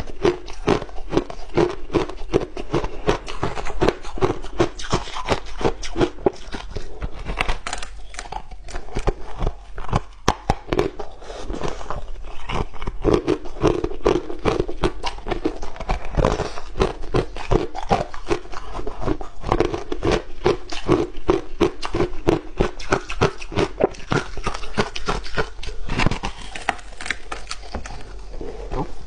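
Crunching and chewing of crumbly blue-dyed ice, close to a clip-on microphone: a rapid, unbroken run of crisp crunches.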